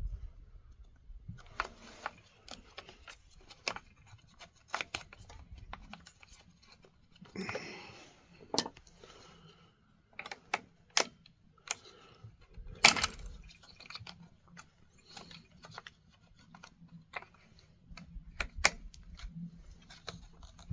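Scattered clicks and light knocks of small plastic and metal chainsaw parts being handled and fitted together, with a brief rustle about eight seconds in and a louder click about thirteen seconds in.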